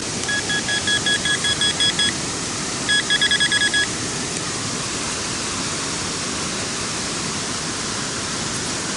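Metal detector beeping on a buried coin: a first run of short high beeps, then a faster run about three seconds in. Underneath is the steady rush of a waterfall below a dam.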